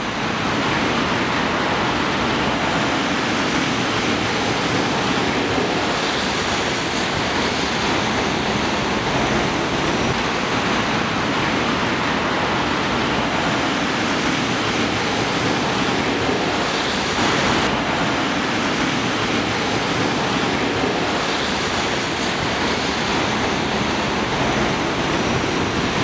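Storm noise of typhoon wind and rain: a steady, even rushing that never breaks.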